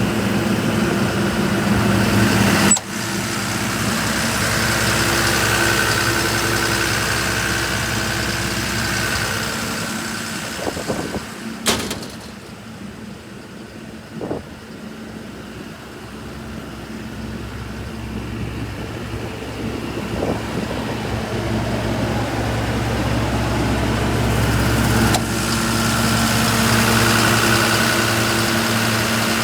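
Cummins diesel engine of a Doosan HP750WCU air compressor running at idle. The sound changes abruptly about three seconds in, fades to its quietest around the middle with a couple of sharp clicks, then swells back up, and the steady engine note returns abruptly near the end.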